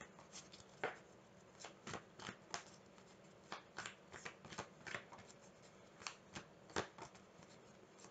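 A deck of tarot cards being shuffled by hand: faint, irregular flicks and taps of cards against each other.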